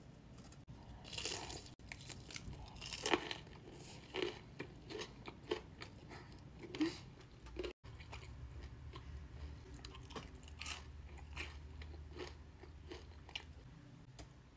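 Close-miked crunching and chewing of crispy breaded fried chicken: a run of loud crisp bites in the first few seconds, a sudden brief dropout about halfway, then more crunching.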